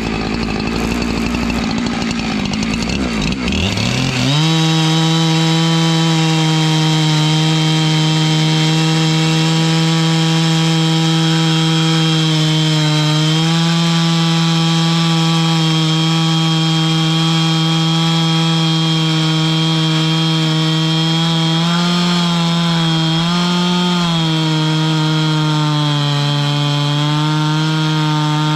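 Chainsaw on a chainsaw mill ripping a log into boards. It runs unevenly at low speed, is throttled up to full speed about four seconds in, then holds a steady high whine through the cut, dipping slightly in pitch now and then as the chain loads up in the wood.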